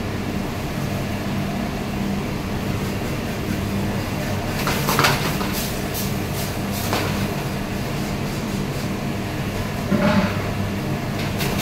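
Steady low rumble of a commercial kitchen's gas burners and extraction. A stainless steel sauté pan of spaghetti scrapes and clanks on the burner grate as it is tossed about five seconds in, with another knock about two seconds later and a third near the end.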